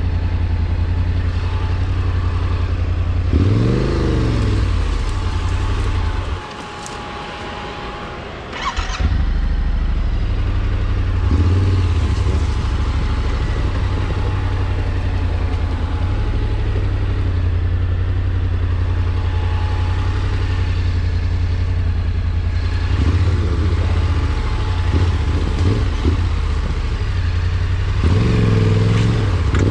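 A vehicle engine runs steadily off-road and revs up and down several times. About six seconds in its note drops away for roughly two seconds, then comes back with a sharp clatter.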